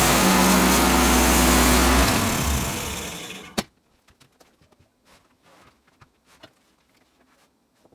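Woodland Mills HM130 sawmill's gas engine running steadily, then shut off about two seconds in and winding down to a stop, with a sharp click as it dies. Afterwards only a few faint knocks and clicks.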